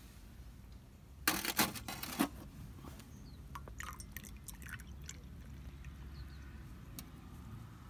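Bialetti aluminium moka pot being handled, with a quick run of sharp metal clinks and knocks about a second in, then a few light clicks as coffee pours from its spout into a metal mug of milk.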